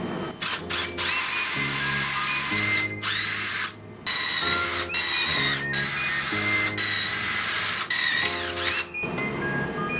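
A power drill running in repeated short bursts, its high whine spinning up at the start of each burst and stopping between them, over background music.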